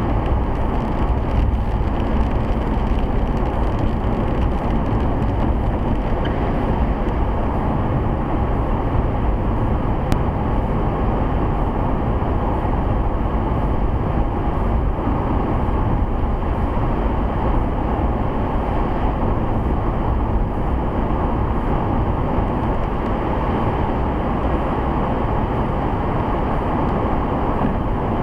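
Steady road noise inside a 2008 Ford Crown Victoria Police Interceptor cruising on a wet highway: tyres on wet pavement and the engine's low drone, heard from the cabin. One brief click about ten seconds in.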